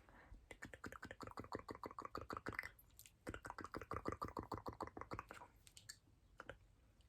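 Close-miked wet mouth sounds: two quick runs of clicking, smacking sounds, about eight a second, each run lasting about two seconds with a short pause between.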